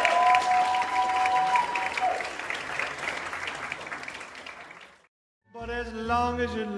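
Audience applauding at the end of a dance, with two steady held tones over the first two seconds, the applause fading out over about five seconds. After a brief silence, music starts near the end.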